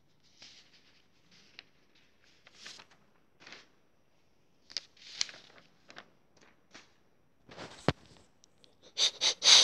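Paper sheets rustling and scraping as drawings are handled and shuffled, with a sharp knock about eight seconds in. Near the end come several loud scraping rubs as a hand brushes over the recording device.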